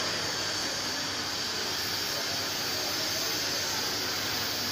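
Oxy-fuel gas cutting torch hissing steadily as it cuts through a steel plate.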